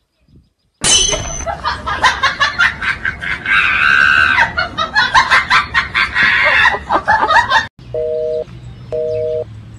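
A loud comic sound clip of cackling laughter and screeching. It cuts off sharply and is followed by two short beeps of a telephone ringback tone, the ringing heard on a phone call that nobody answers.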